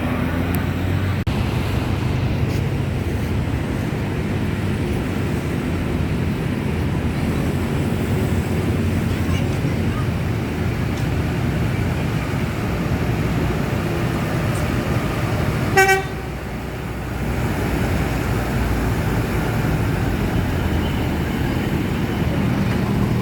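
Steady roadside traffic noise: engine rumble and tyre noise from passing buses and other vehicles. About sixteen seconds in, a horn gives one short, sharp toot.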